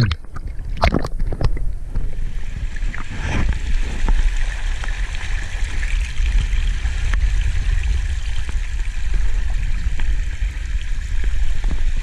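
Water sloshing and splashing against a GoPro at the ocean surface for the first second or two, then a steady rush of sea water washing over shoreline rocks, with a deep rumble underneath.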